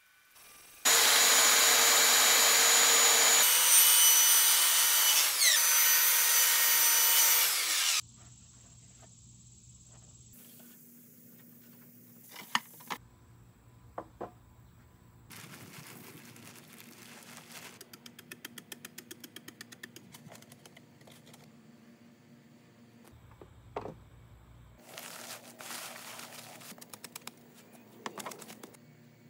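A power tool runs loudly for about seven seconds, its pitch sliding near the end as it cuts off. Then come quieter work sounds: a few sharp knocks and a quick run of ticks.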